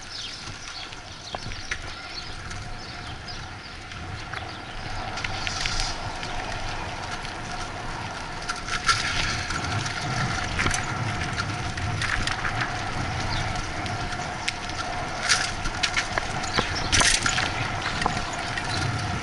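Riding a bicycle with the camera on board: wind rumbling on the microphone and tyres rolling over pavement, with scattered rattles and knocks from the bike going over bumps, more of them in the second half.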